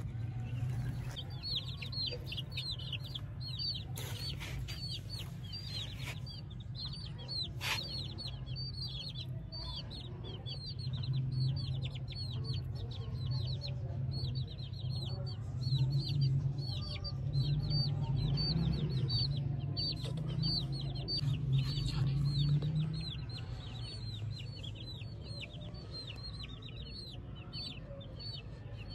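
A group of young chicks peeping continuously: many short, high cheeps, each falling in pitch, several a second. Underneath runs a steady low hum that grows louder in the middle.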